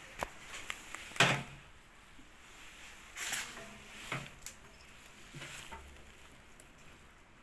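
Scattered knocks and clatters of objects being handled, the loudest just over a second in, with a few lighter knocks later.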